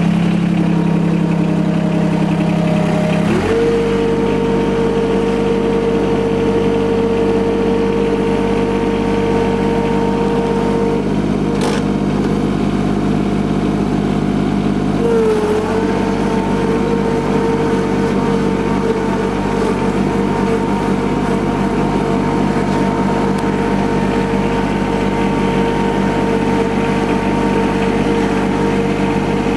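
John Deere 2210 compact tractor's three-cylinder diesel engine running steadily under way. A few seconds in the engine note changes and a steady high whine sets in, which holds with a brief dip about halfway.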